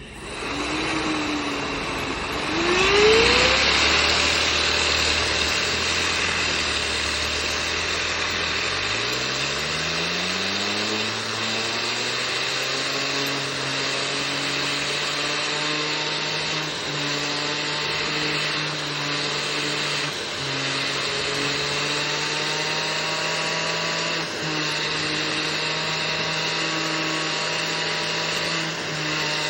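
Fidget spinner whirring with a buzzing hum. The pitch sweeps up quickly about three seconds in, rises again around ten seconds in as it is spun up, then holds a steady tone.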